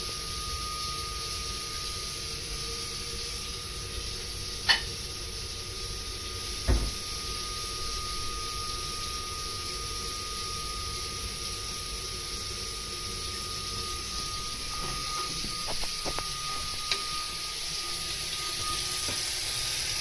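Ideal 24 boiler giving a steady high-pitched whistle over a steady hiss while hot water is being drawn. A sharp click about five seconds in and a low thump about two seconds later.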